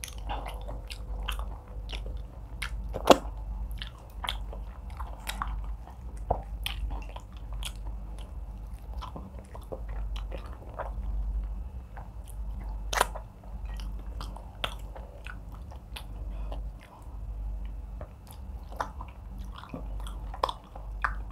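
Close-miked chewing of egusi soup with fufu, fish and meat, with irregular wet clicks and smacks from the mouth and fingers in the food; two sharper clicks stand out, about three seconds in and again about thirteen seconds in.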